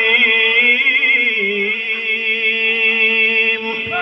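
A man reciting the Quran in a melodic tajweed style into a microphone, drawing out the verse's closing word 'ar-Rahim' as one long held, ornamented note. The note wavers throughout, dips in pitch a little after a second in, and stops near the end.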